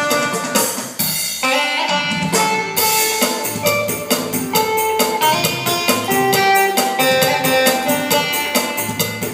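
Korg Pa600 arranger keyboard playing a cha-cha-cha accompaniment style: a steady drum-kit beat with bass and plucked guitar-like parts under a held-note melody, and a brief break about a second in.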